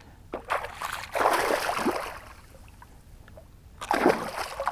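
Water splashing and sloshing in bursts, about a second in and again near the end, from a just-caught pike moving in the water.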